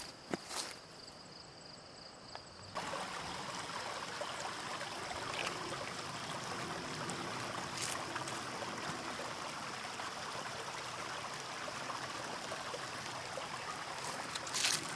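Steady rush of running water from a small stream, starting abruptly about three seconds in; before that, faint outdoor quiet with a few light clicks.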